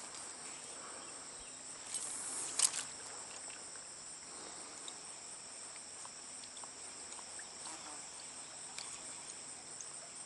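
Steady chorus of insects, crickets or similar, singing in several high-pitched steady tones. About two seconds in, a brief louder rustle or splash rises over it for under a second.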